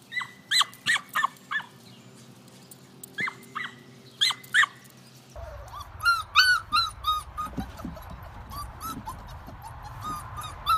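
A small dog yapping in short, sharp, high-pitched bursts, several in quick succession and then two more short runs. About five seconds in, puppies take over with a quick run of high whines and yelps, followed by fainter, scattered whimpers.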